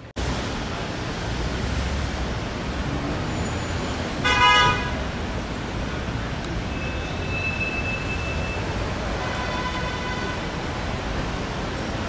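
Steady road traffic noise from cars and buses around the vehicle, with one short vehicle horn toot about four seconds in, the loudest sound. Fainter high tones follow a few seconds later.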